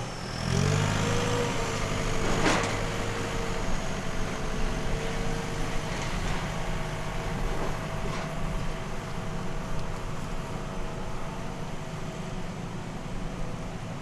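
Steady drone of a vehicle running, with a faint high whine and a single sharp click about two and a half seconds in.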